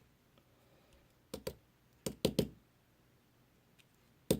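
Sharp little taps and clicks of metal on a hard surface while a Kwikset lock cylinder is being gutted and its pins removed: two quick taps about a second and a half in, three more soon after, then a faster run of taps near the end.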